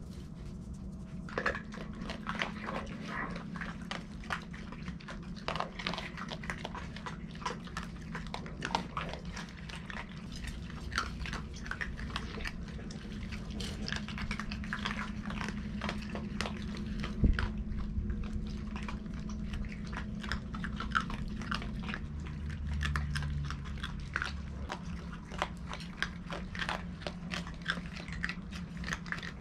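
Raccoons eating dry cat kibble: rapid, continuous crunching and chewing, with one louder knock about halfway through.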